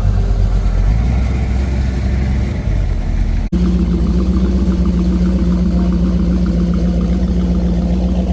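Classic car engines running at idle. About three and a half seconds in the sound cuts abruptly to another engine, which holds a steady low drone.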